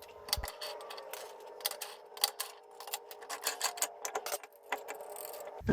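Irregular light metallic clicks and taps of hand tools at work on a car wheel, over a faint steady hum.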